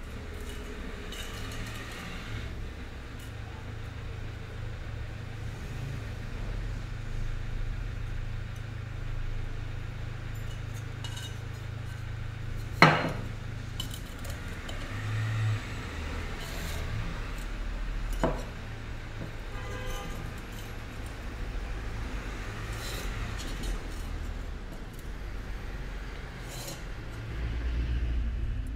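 Pencil scratching lines along a steel ruler on an unglazed fired-clay lamp box, with light clinks of the ruler against the clay. One sharp knock comes about halfway through and a smaller click a few seconds later, over a steady low rumble.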